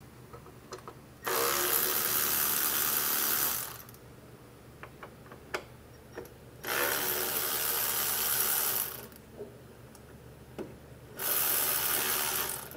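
A power ratchet runs in three bursts of about two seconds each, turning out the bolts that hold the EGR cooler's connection on a Volvo D13 engine. A few light clicks come between the bursts.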